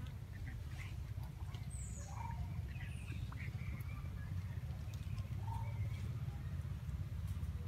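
Outdoor forest ambience: a steady low rumble under faint, short animal chirps and squeaks scattered through, with a couple of brief high falling whistles about two and three seconds in.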